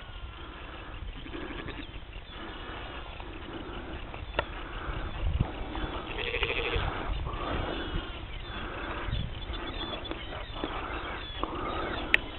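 A flock of ewes and lambs bleating, many calls overlapping one after another, some of them higher-pitched.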